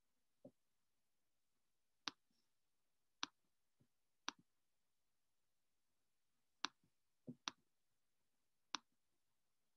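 Near silence broken by about six sharp, short clicks at uneven intervals, with a few fainter ones between them.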